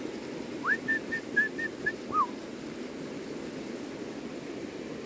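A short whistled phrase of about seven clear notes lasting a second and a half. It opens with a rising note, runs through short notes at one high pitch, and ends on a lower falling note. A steady rushing of river water runs underneath.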